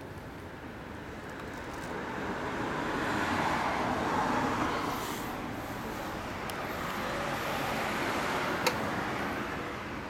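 Road traffic: a passing vehicle swells to its loudest about four seconds in and fades, then another rises toward the end. A single sharp click comes near the end.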